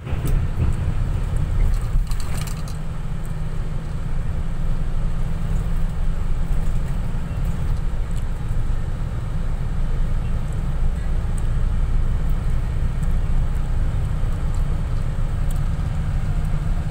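Road and engine noise heard inside a moving vehicle's cabin: a steady low rumble, with a brief burst of rattling about two seconds in.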